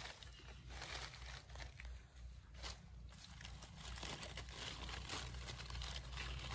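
Leafy green branches rustling and crackling as hands sort through them, in many short irregular rustles, with a low steady hum underneath.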